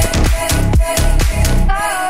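Electronic dance music with a steady beat of about four kicks a second over a heavy bass line. Near the end the kick and bass drop out, leaving a gliding synth melody.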